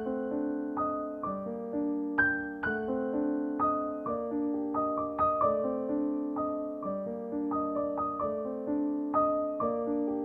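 Background piano music: a gentle melody of single notes and chords, each note struck and left to fade.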